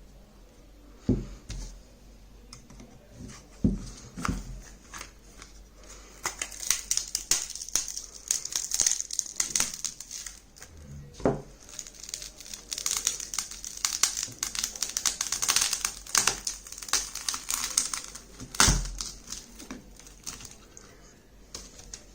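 A Lenovo tablet's plastic casing being pried apart: a dense run of crackling, snapping clicks as the case separates, broken by a few sharp knocks.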